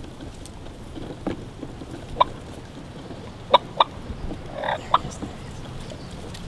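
Turkey clucks: four short, sharp single notes spread over a few seconds, with a brief rougher call between the last two.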